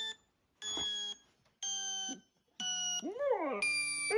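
Short electronic alarm-like tones played back, four blocks of steady stacked pitches about a second apart, each about half a second long. About three seconds in, a six-month-old Border Collie puppy gives a brief rising-and-falling howl.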